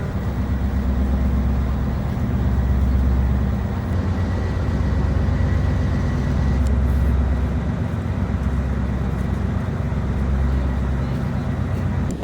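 Heavy armoured military vehicles' diesel engines running in a low, steady drone that swells and eases as vehicles pass.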